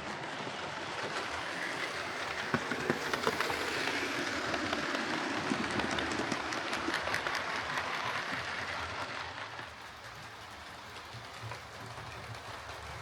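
Hornby LMS Stanier Class 4P OO gauge model steam locomotive running on its track after the repair of its split drive gear: a steady whirring of motor and gears with light clicks. It grows louder through the middle and drops off about ten seconds in.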